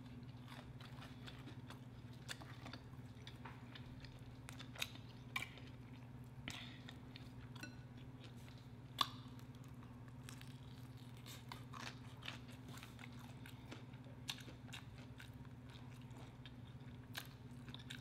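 A person chewing fried chicken wings and a fried biscuit, with scattered short crunches and clicks, the sharpest about nine seconds in. A steady low hum runs underneath.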